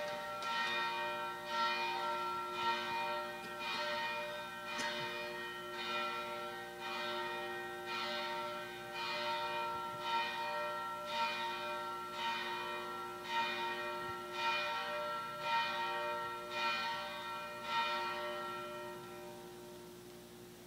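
Church bell ringing, struck about once a second, its long tones overlapping, and dying away near the end.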